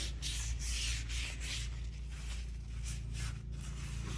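Rag scrubbing back and forth over the rusty metal top of a table saw, about two to three strokes a second, working in spray rust remover on heavy rust.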